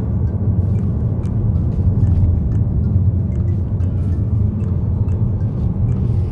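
Ford car driving at road speed, heard from inside the cabin: a steady low rumble of engine and road noise.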